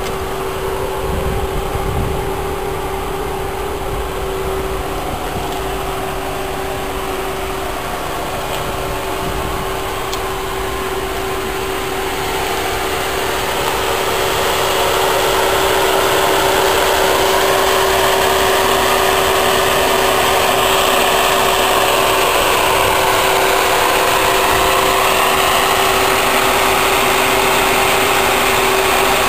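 A car engine idling steadily with a constant hum, growing louder about halfway through and then holding steady.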